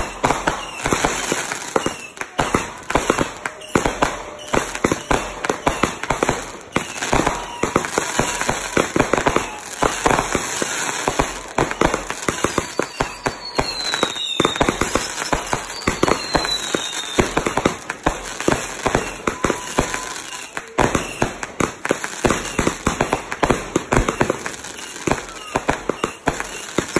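Aerial fireworks going off in rapid succession: a dense, continuous barrage of bangs and crackles, with a couple of falling whistles about halfway through.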